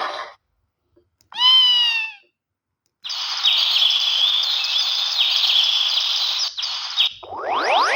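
Samsung SGH-E300 mobile phone playing bird-call tones through its small speaker: a single short chirp falling in pitch, then about four seconds of warbling, twittering birdsong over a noisy background. Near the end a new tone of fast rising and falling sweeps begins.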